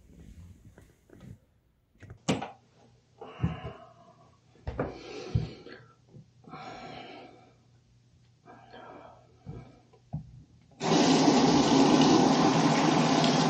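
A few short scattered sounds, then about eleven seconds in a bathroom sink tap is turned on and water runs steadily into the basin.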